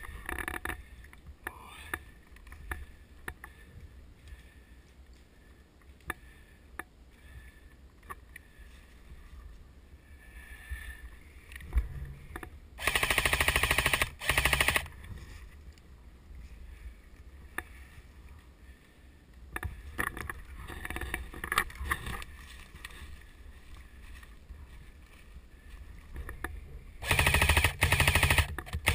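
Airsoft rifle firing on full-auto in rapid bursts: a burst of about a second and a half with a short one after it about 13 seconds in, then a string of bursts near the end. Between them only quieter rustling and low wind rumble.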